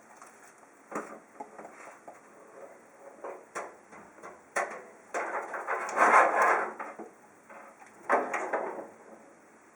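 Power supply unit being handled and fitted into a PC case: irregular knocks and clunks with longer stretches of scraping and rubbing as it slides into place, the loudest about halfway through.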